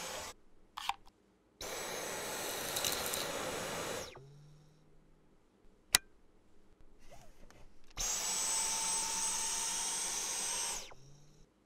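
Dyson V11 cordless stick vacuum motor running with a high whine, in separate runs of a few seconds that cut off abruptly. Between the runs comes a single sharp click as the crevice tool snaps onto the wand.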